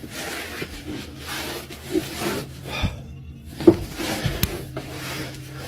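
Rustling and handling noise from someone moving about in a small attic, with a few sharp knocks against wood, the loudest a little past the middle, over a low steady hum.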